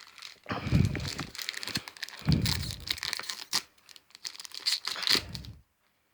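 A foil trading-card booster pack being torn open and its wrapper crinkled, in three louder spells, stopping abruptly near the end.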